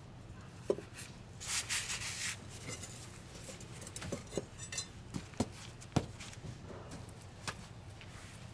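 Hard knocks and clinks of granite curbstones and a steel pry bar striking each other as the stones are levered and shifted into line, about half a dozen at irregular intervals. A short gritty scrape comes about one and a half seconds in.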